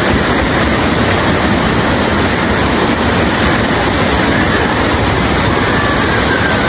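Floodwater torrent rushing through a street: a loud, steady rush of water with no break.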